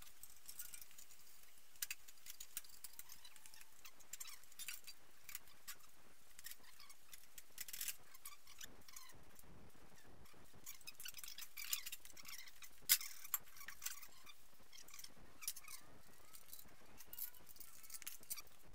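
Faint, light metal clicks, taps and scrapes as a manual gearbox is lined up and pushed onto the back of a BMW M20 straight-six engine, with one sharper knock about thirteen seconds in.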